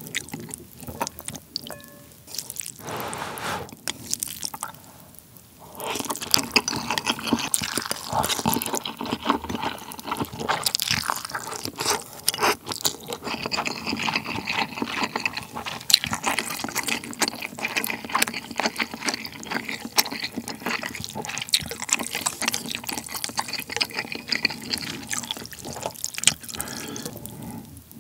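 Close-miked wet mouth sounds of a person eating spicy instant ramen: noodles slurped and chewed with sticky, smacking clicks. There is a short lull a few seconds in.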